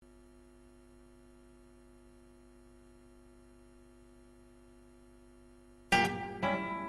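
Faint steady hum with a few fixed tones. Almost six seconds in, a classical guitar begins a tango arrangement with two sharp plucked chords about half a second apart.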